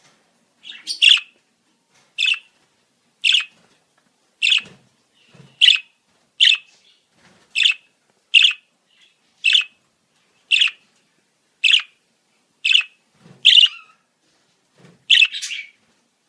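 Caged budgerigar giving short, sharp chirping calls, about one a second, some fourteen in a row.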